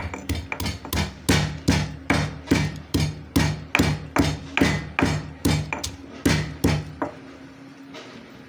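Pestle pounding cloves, ginger and cardamom in a mortar for masala tea: a steady run of sharp strikes, about two to three a second, stopping about seven seconds in.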